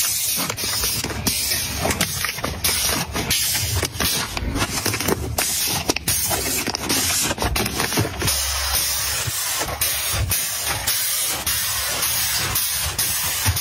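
Plastic-wrapped tissue packs and toilet paper rolls crinkling and rustling as they are handled and set on a shelf, with many small crackles and soft knocks.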